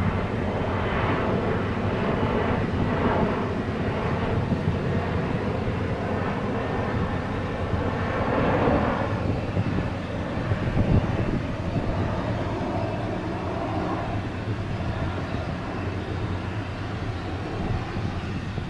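Twin jet engines of an Azul Embraer E-Jet airliner running at low power as it taxis, a steady engine drone with a hum underneath.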